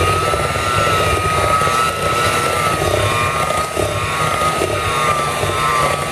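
Small electric hand mixer running steadily, its beaters working flour into cookie dough: a constant motor whine with a slight waver in pitch over a rough churning rumble.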